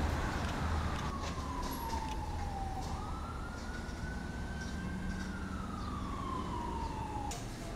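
Emergency vehicle siren wailing, its pitch slowly rising and falling about twice, over a low rumble of traffic. It breaks off near the end.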